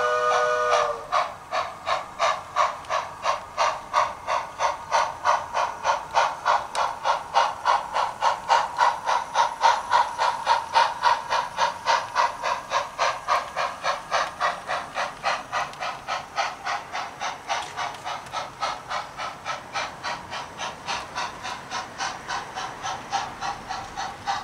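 Sound decoder of a Bachmann 2-8-0 model steam locomotive: a steam whistle cuts off about a second in, then steady exhaust chuffs at about three a second, swelling and then fading as the engine runs.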